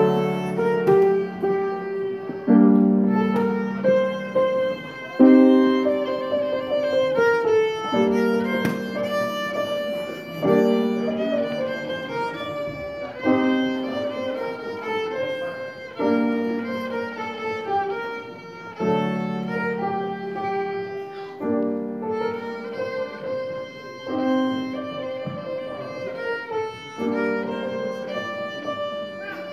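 Violin and piano playing an Azerbaijani folk song together, the violin carrying the melody over a low piano accompaniment that repeats about every two to three seconds.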